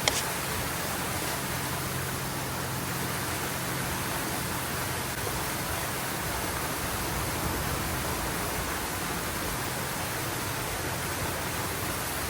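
Small cascading waterfall on a creek, water rushing steadily. A single sharp click right at the start.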